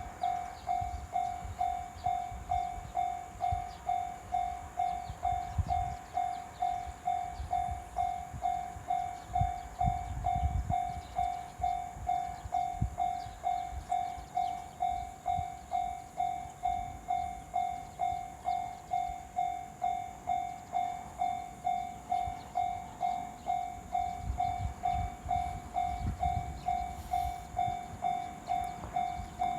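Japanese railway level crossing warning bell ringing, an even series of ringing dings about twice a second. A low, uneven rumble comes and goes under it.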